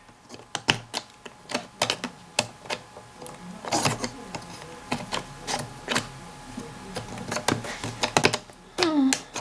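Small plywood parts of a laser-cut Escape Welt wooden puzzle box clicking and knocking as they are pushed and slid by hand, in irregular light taps a few times a second.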